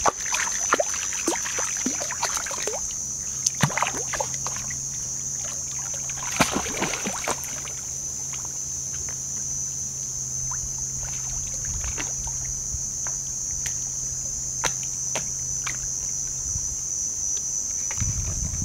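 Jack Russell terrier splashing as it wades in and paddles through shallow lake water: small irregular splashes and drips, busiest in the first several seconds and sparser after, over a steady high-pitched hiss.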